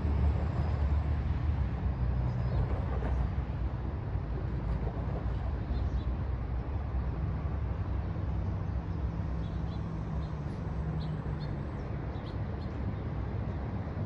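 A road vehicle's engine rumble fades as it drives away over the first two seconds, leaving a steady low hum of distant traffic. A few faint high chirps come in the second half.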